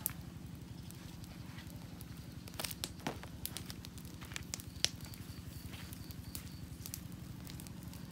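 Wood campfire crackling, with scattered sharp pops, the loudest a little before five seconds in, over a steady low rumble.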